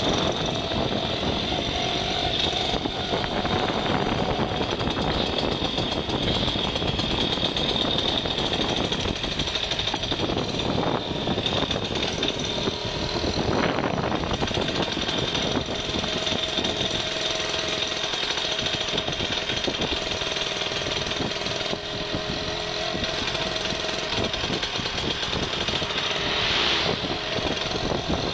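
Steady, rattling vehicle noise from a ride along a road, with wind buffeting the microphone.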